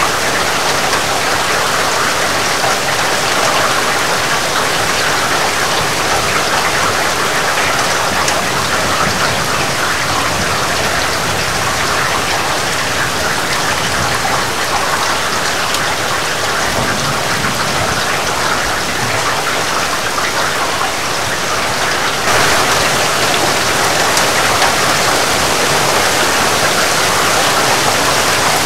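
Heavy rain falling steadily: a dense, even hiss with no thunder. It turns slightly louder about three-quarters of the way through.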